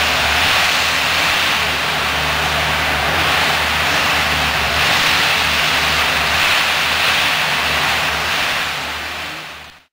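Komatsu 941 harvester's diesel engine and hydraulics running steadily under load while its 370E harvester head feeds and delimbs a eucalyptus stem, a low engine hum under a loud steady hiss. The sound fades out quickly at the very end.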